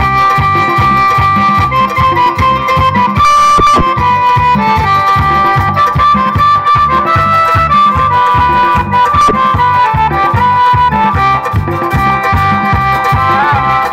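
Live instrumental punta music: an electronic keyboard holds a sustained melody and chords over a fast, steady beat of hand drums, about four to five strokes a second.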